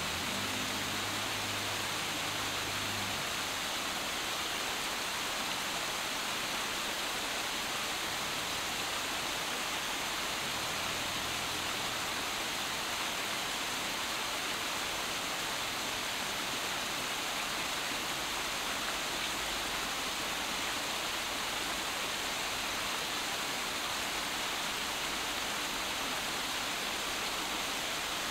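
Steady outdoor ambience: an even rushing hiss that does not change. A faint low hum comes in during the first three seconds and again around ten to twelve seconds in.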